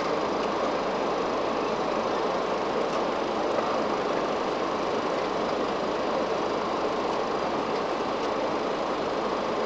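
Steady cockpit noise of a Boeing 737-500 in flight: an even rush of airflow and engine sound heard inside the flight deck.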